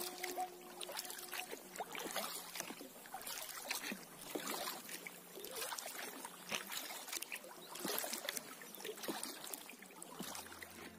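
Kayak being paddled on calm water: the paddle blades dip, and water trickles and drips off them in a soft, uneven rhythm.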